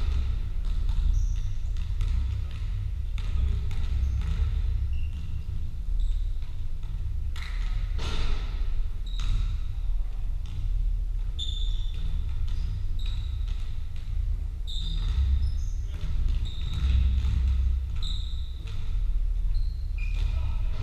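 Basketballs bouncing on a sports hall's wooden floor during play, with short high shoe squeaks and echo from the large hall, over a steady low rumble.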